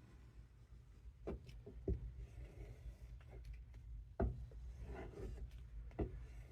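A knife blade being stropped on a leather strop, with soft rubbing strokes and four sharp knocks as the knife is handled.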